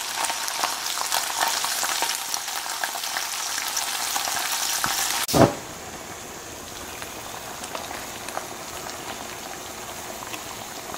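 Food sizzling and crackling in a hot frying pan. About halfway through there is a brief thump, and after it the sizzle goes on more quietly.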